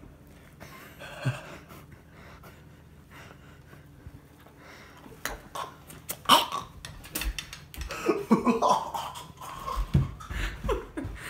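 A person coughing after being fed a mouthful, with cutlery clicking against a plate. The sounds start about halfway through after a quiet stretch.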